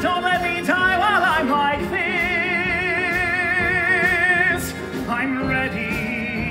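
A man sings a musical-theatre number in a full voice with wide vibrato, over instrumental accompaniment. He holds one long note through the middle of the passage.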